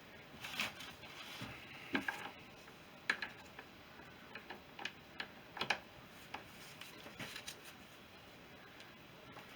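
Light, irregular metallic clicks and knocks of hand tools and parts being handled in a workshop.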